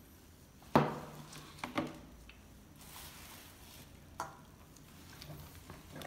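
Scattered knocks and clicks from a kitchen knife, a wooden cutting board and a steel bowl as vegetables are handled for chopping; the loudest is one sharp knock under a second in. A soft rustle of lettuce leaves comes near the middle.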